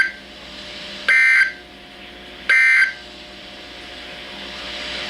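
Emergency Alert System digital data bursts on NOAA Weather Radio: short, loud two-tone warbling squawks, the end of one and then two more about 1.4 s apart, over steady radio hiss. Three short bursts in a row like this are the EAS end-of-message code that closes the warning.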